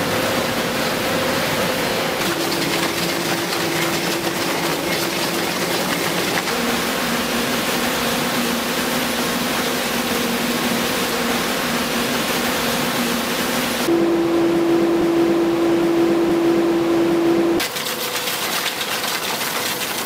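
Steady, loud noise of an underground mining machine working, with a held droning note over it that jumps to a new pitch every few seconds.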